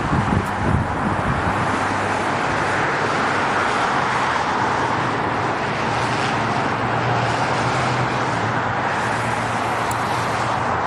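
Steady road-vehicle noise: an even rushing sound over a constant low engine hum.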